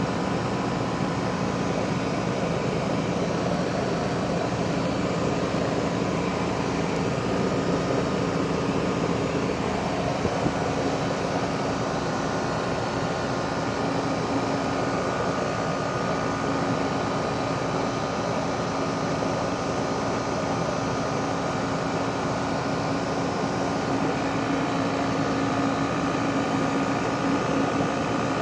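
2012 Rheem 4-ton heat pump running steadily in cooling mode: an even mechanical rush of air with a steady low hum.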